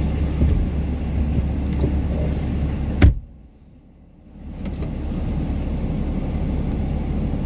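Steady rumble of an idling vehicle engine, broken about three seconds in by one sharp crack from a .22 semi-automatic rifle, a shot at a bird that missed. After the shot the engine sound drops away for a second and a half, then returns.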